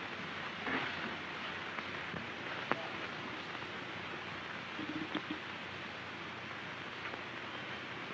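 Steady hiss of an old 1930s film soundtrack, with a few faint clicks and knocks.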